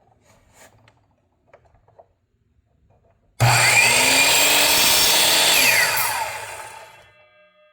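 A few light clicks, then the Bosch CM10GD 10-inch miter saw's motor switched on about three seconds in: it spins up to speed with a loud whine, runs steadily for about two seconds, then is released and winds down, its pitch falling as the blade coasts to a stop.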